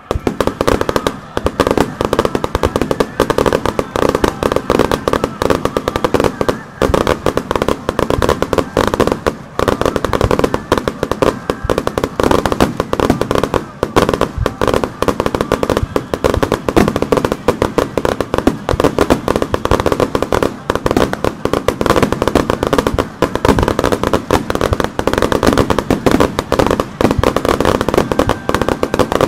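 Fireworks barrage: a dense, continuous crackle of many rapid bursts that starts abruptly and keeps up without a pause.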